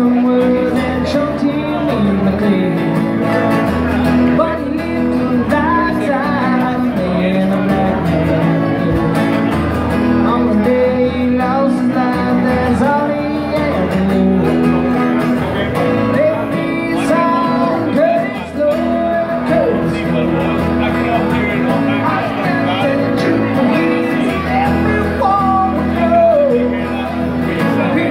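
Live acoustic guitar strummed with a man singing a song into a microphone, with low bass notes under the chords.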